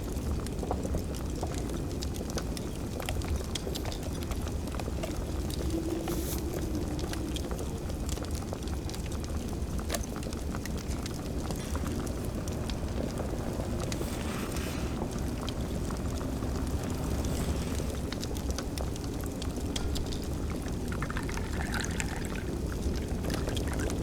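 Fire crackling with many small scattered pops over a steady low rumble, with a few brief, indistinct kitchen sounds mixed in.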